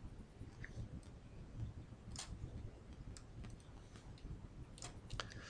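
A few faint, separate computer mouse clicks over quiet room noise.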